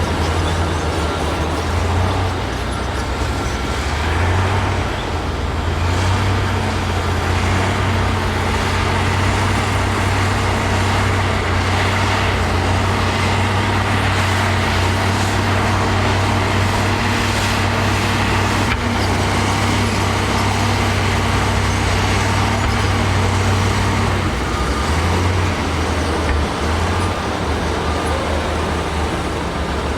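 Heavy diesel engine of earth-moving machinery running steadily, its low hum wavering briefly twice as the load changes.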